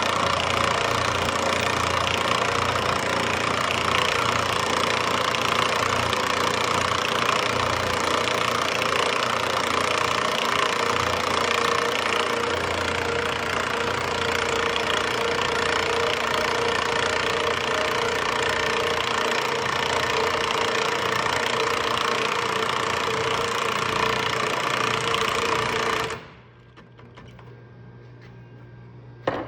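An engine running steadily under a loud mechanical clatter, cutting off suddenly near the end.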